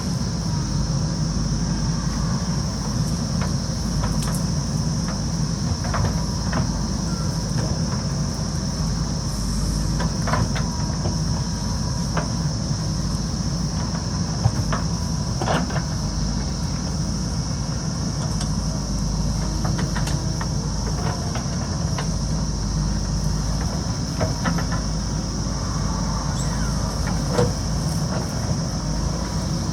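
A JCB backhoe loader's diesel engine running steadily under working load, with scattered knocks and clanks through it, and a steady high-pitched hiss.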